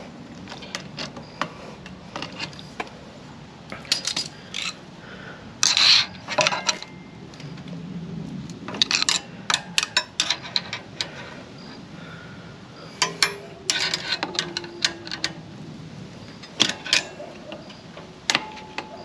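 Hand tools clinking and scraping against a motorcycle rear brake caliper as the pad retaining pin is worked loose with pliers and a screwdriver. The sound is an irregular run of sharp metallic clicks and clinks, some louder than others.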